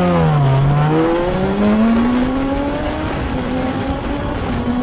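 Motorcycle engine at high revs. Its pitch falls for the first half-second or so, then climbs steadily as the bike accelerates, dipping briefly twice as it shifts up.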